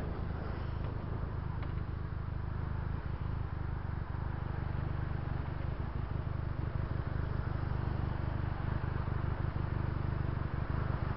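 Benelli TNT300 motorcycle's parallel-twin engine running steadily at low revs while creeping along in slow traffic, a low, even rumble.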